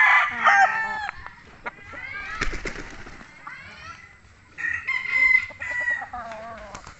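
Roosters crowing: one crow ends about a second in and another comes about two thirds of the way through, with softer clucks in between.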